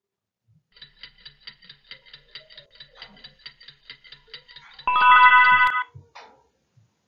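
Alarm-clock countdown timer sound effect: rapid, even clock ticking at about five ticks a second, then a loud alarm bell ringing for just under a second about five seconds in.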